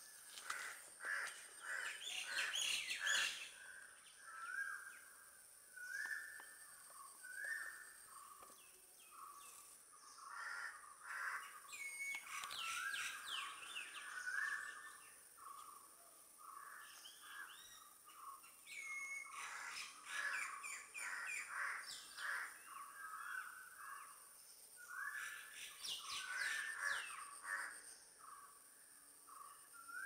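Crows cawing again and again, mixed with other birds' short repeated calls and bouts of chattering. A faint steady high tone runs underneath.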